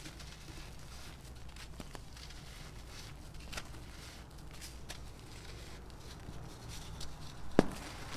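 Dry sand and charcoal pieces being grabbed, squeezed and let run through the fingers: soft gritty crunching and trickling with scattered small crackles, and one sharp crack near the end.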